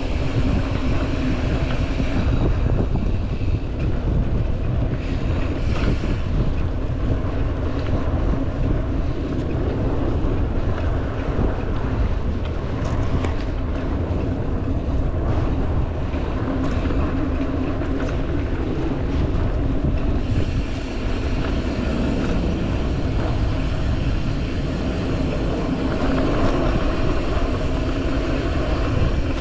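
Wind buffeting the microphone of a camera on a moving mountain bike, with a steady low rumble of tyres rolling over the dirt trail.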